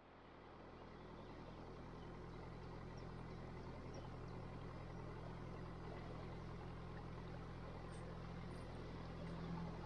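Narrowboat's diesel engine running steadily at low cruising revs, a faint even hum that fades in over the first couple of seconds.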